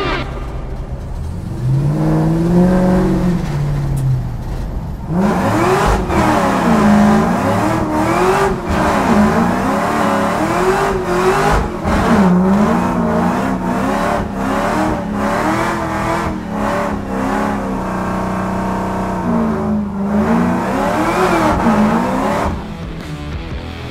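Vehicle engine revving up and down over and over, its pitch rising and falling about once a second, with one slower rise and fall before it; it stops near the end.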